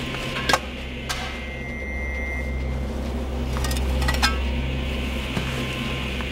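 Shovels digging into a grave, with a few sharp metallic clinks as the blades strike earth and stone, over a low steady hum.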